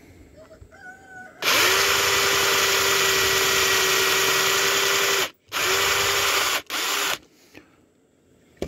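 Power drill boring a hole in wood with a spade bit: the motor runs steadily for about four seconds, stops, then runs in two short bursts.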